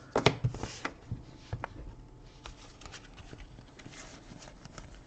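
Soccer trading cards being handled: light clicks, taps and soft rustles as cards slide against one another, with a few sharper clicks in the first second.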